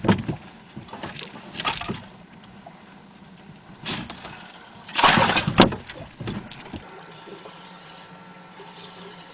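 Knocks and clattering in a fishing boat as a walleye is put into the live well, with a louder, longer clatter about five seconds in and a few smaller bumps around it.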